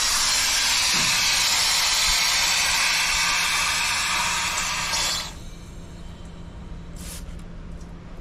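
A loud, steady hiss of escaping pressure that cuts off suddenly about five seconds in. It comes during a soapy-water leak check on a fire truck's air-actuated pump shifter.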